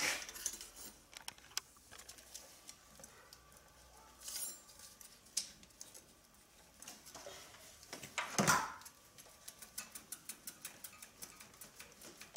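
Long metal coolant pipe on a Honda Civic 1.7L engine being wiggled and pulled by gloved hands while stuck tight in its seal: faint, irregular small clicks, taps and rattles, with a louder scrape about eight and a half seconds in.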